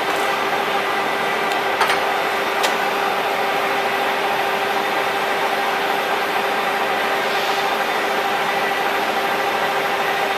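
Progres N525 engine lathe running under power with a steady mechanical hum and whine. Two brief clicks come about two seconds in.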